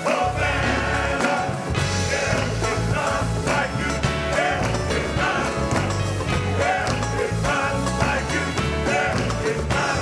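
Church band playing upbeat gospel music with a prominent bass line and a steady beat.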